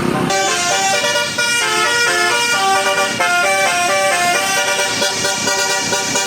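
Bus's Basuri telolet horn, a set of musical trumpet horns, playing a quick tune of stepped notes that change several times a second.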